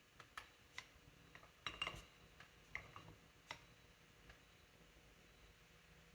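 Light clicks and clinks of small metal hydraulic-pump parts being handled and fitted together, a handful of sharp ticks with a quick cluster about two seconds in.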